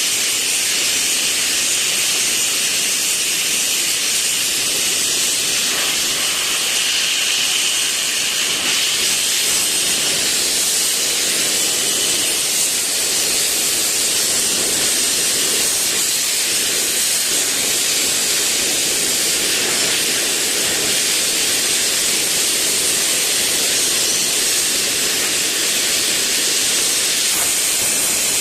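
Gas torch flame hissing steadily at an even level.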